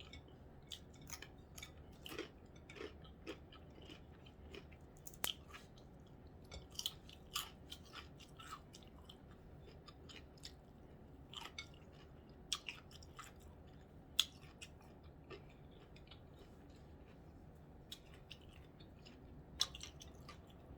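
Faint chewing of a last bite of corned beef sandwich, with scattered soft mouth clicks and smacks.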